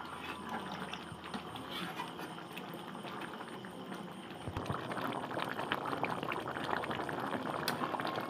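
Chicken curry (jhol) bubbling at a full boil in a metal kadai on a wood-fired clay stove, with a metal spatula stirring through it. The bubbling grows louder about halfway through, and there is one sharper tick near the end.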